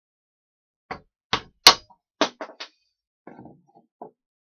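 A run of sharp knocks and clacks of hard objects striking one another, about six in quick succession with the loudest near the middle, then a few softer, duller knocks.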